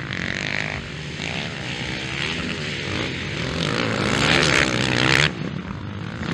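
Honda CRF-class single-cylinder four-stroke dirt bikes revving up and down as they ride through a turn, the engine pitch rising and falling with throttle and gear changes. It grows louder about four seconds in, then drops off sharply about a second later.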